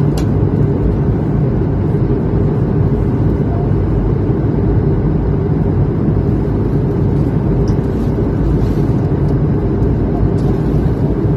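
Steady drone of a passenger airliner cabin in flight: engine and airflow noise with a constant low hum.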